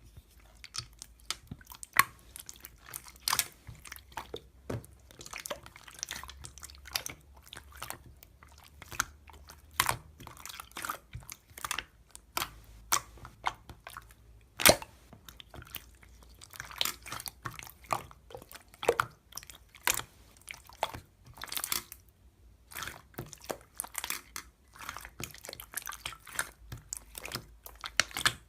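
Pearl slime, slime mixed with small pearl beads, being squeezed and pressed by hand. It gives off irregular crunchy clicks and sticky pops, a few of them sharper and louder than the rest.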